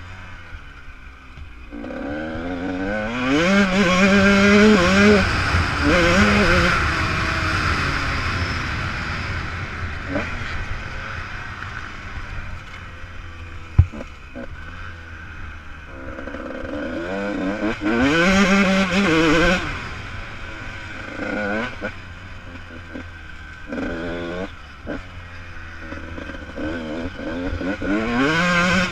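Off-road motorcycle engine heard from the bike on a dirt circuit, revving up and down as the rider accelerates and shifts, its pitch repeatedly climbing and dropping, over a steady low rumble. A single sharp knock about fourteen seconds in.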